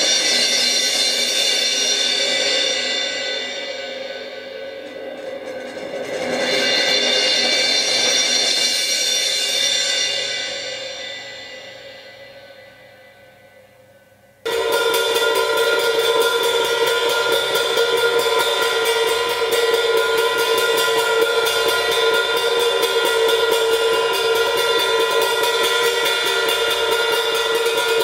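Drum-kit cymbal swelling and ringing out twice, the second time fading almost to nothing. About halfway through it cuts suddenly to a steady, dense cymbal wash of very rapid strokes.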